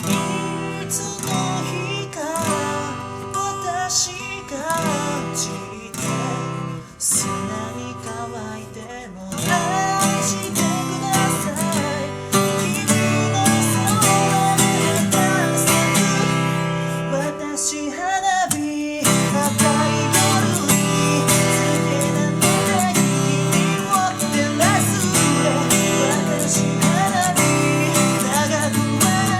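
Acoustic guitar strummed in chords with a steady rhythm, breaking off briefly about nine seconds in and again about nineteen seconds in.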